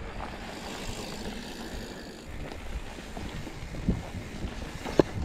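Mountain bike rolling over a dirt trail, tyre noise and wind on the camera microphone, with a light clatter from the bike and a sharp clack about five seconds in.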